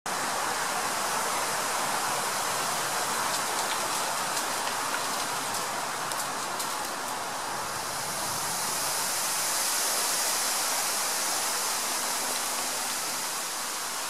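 Wind gusting through a broadleaf forest canopy, the leaves and branches making a steady rushing hiss that swells a little about two-thirds of the way in.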